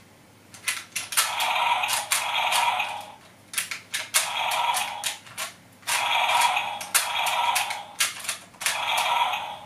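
A toy T-Rex's electronic roar, played over and over through its small tinny speaker, each roar about a second long. Sharp plastic clicks of the toy's button and joints come between the roars.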